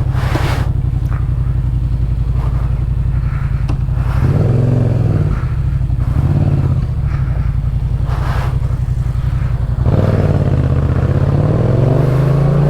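Yamaha MT-07's parallel-twin engine through a Jeskap K4 full exhaust, running on the road with a steady exhaust note. Its pitch rises as the rider accelerates about four seconds in, eases off, then rises again from about ten seconds.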